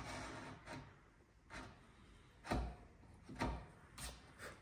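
Bevel-edge chisel scraping the bottom of a groove in timber, in short separate strokes about once a second; the two loudest, about two and a half and three and a half seconds in, land with a dull knock.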